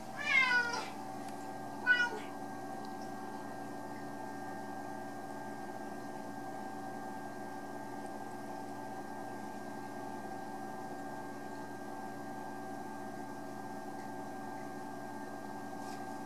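A cat meows twice: a longer call in the first second and a short one about two seconds in. After that there is only a steady hum.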